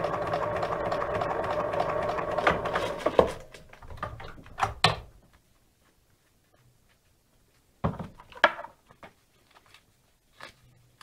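Bernina electric sewing machine running steadily, its needle piercing several layers of natural leather with no thread, then stopping a little over three seconds in. After it stops come a few scattered clicks and knocks as the leather is handled.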